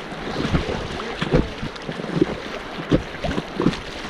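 Fast-flowing river water splashing against an inflatable kayak in irregular surges, several a second, with wind on the microphone.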